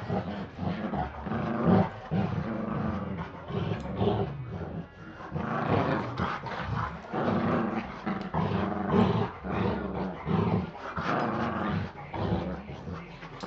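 A Chihuahua and a bigger dog play-fighting, with rough growling in repeated bursts throughout.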